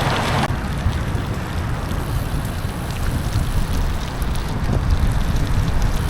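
Wind buffeting the microphone of a camera on a moving bicycle, a steady low rumble. A broader hiss over it cuts off sharply about half a second in.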